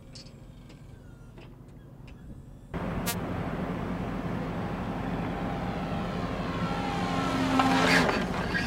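ScanEagle drone's small engine and propeller buzzing as it flies in toward the SkyHook recovery rope. The sound comes in suddenly about three seconds in, grows louder, and drops in pitch near the end as the drone passes close. Before that there is only a faint low background.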